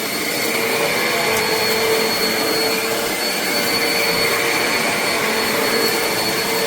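Eureka NEU10AE5 AirSpeed bagless upright vacuum cleaner running steadily on a carpet, a constant rushing noise with a steady motor whine. Its suction is weak, as the owner judges it.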